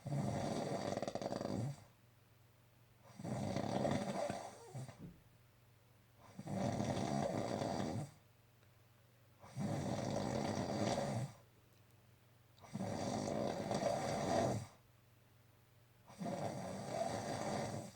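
A sleeping person snoring really bad: six long, rasping snores, one about every three seconds.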